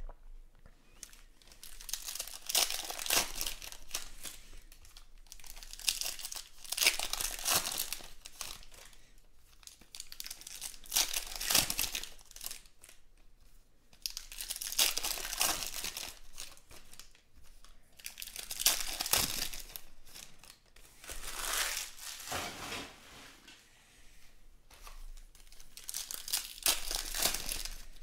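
Foil wrappers of 2017 Panini Stars and Stripes baseball card packs being torn open and crinkled by hand, one pack after another, in repeated bursts every few seconds.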